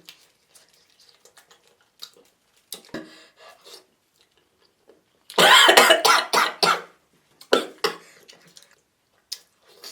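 A person coughing hard, a run of several coughs about five seconds in and a couple more shortly after, among soft clicking and smacking eating sounds.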